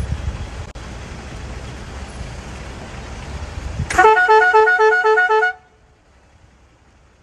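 Low rumble of a vehicle driving on a dirt track. About four seconds in, a vehicle horn sounds in quick repeated toots, about four a second, for a second and a half, then the sound cuts off suddenly.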